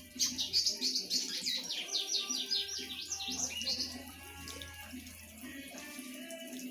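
Washing machine filling with water at the start of a wash cycle, with a low hum. Over it a bird chirps in a quick run of short high notes for the first three seconds or so, then stops.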